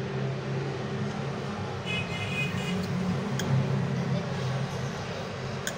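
Steady low background rumble, with a brief high tone about two seconds in and a few light clicks of a knife blade against a marble board.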